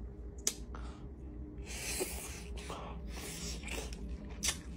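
A man breathing and sniffing softly, with a few small sharp clicks and a low steady hum underneath.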